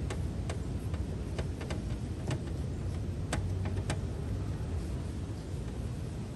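Light scattered clicks and taps of fingers and an alcohol cleaning wipe working on a motorcycle's painted rear fender, over a steady low rumble. The clicks are spread over the first four seconds and stop after that.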